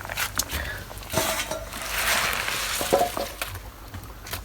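Pig feed being mixed in a metal cooking pot: knocks and clinks of the utensil against the pot, with a rustling stretch about halfway through as the feed is stirred.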